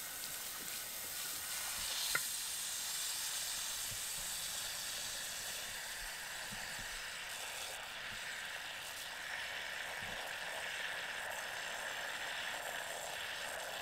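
Garden hose spray nozzle hissing steadily as it runs water into a birdbath basin, with a single small click about two seconds in.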